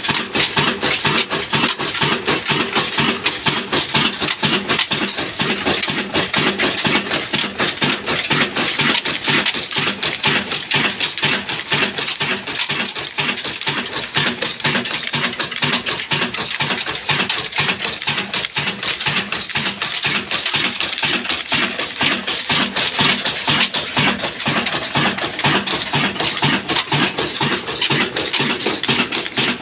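Old Ruston-type diesel engine running steadily, with a fast, even clatter of beats.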